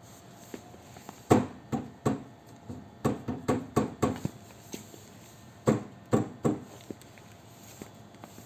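Mi Walking Pad R1 Pro walking treadmill in use, making a run of uneven knocks and thuds in two bursts over a faint steady hum. This is the unwanted noise the unit makes while being used.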